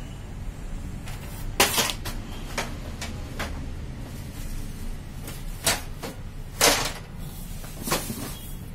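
Plastic parts of a Xerox WorkCentre colour copier being handled and set down: about six sharp clicks and knocks spread over several seconds, over a steady low hum.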